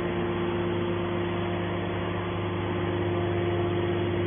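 Hydraulic scrap-metal baler running with a steady, even hum made of several held tones.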